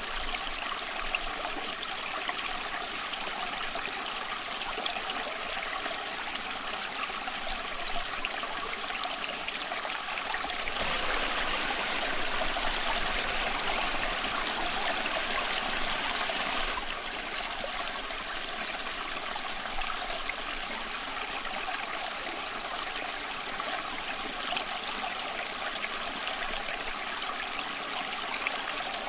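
Small stream running over stones, a steady trickling and babbling that swells a little louder for several seconds in the middle.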